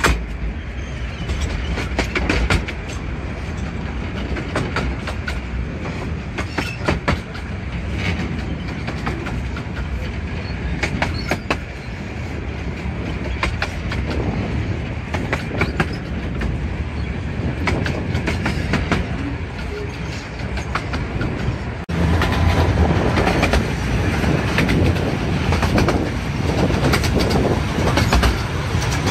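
Carriage of the 15-inch-gauge Romney, Hythe and Dymchurch Railway running along the line: a steady rumble with the wheels clicking over rail joints. About three quarters of the way through, the sound abruptly gets louder and fuller.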